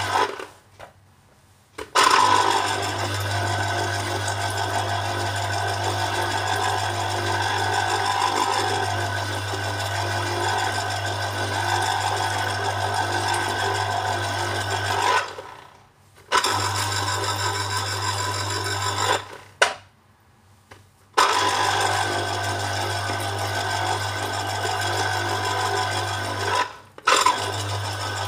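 Electric citrus juicer's motor running as orange halves are pressed onto its spinning reamer cone: a steady hum with rubbing and squelching of the peel against the cone. The motor stops briefly four times, just after the start, about halfway, a few seconds later, and near the end, then starts again.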